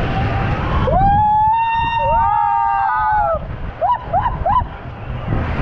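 Riders on an inflatable tube sliding down a waterslide, whooping: a long, high held shout with a second voice joining about a second later, then three short rising whoops, over the steady rush of water and wind.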